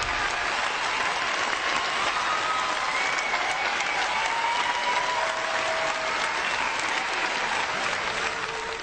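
Large audience applauding steadily, with a few faint voices calling out over the clapping.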